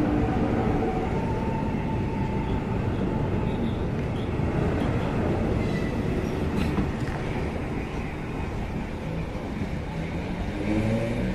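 EG2Tv Ivolga 3.0 electric train pulling out past the platform: steady wheel-on-rail rumble with a few steady motor tones as it gets under way. Near the end, a whine from another train's motors starts rising in pitch.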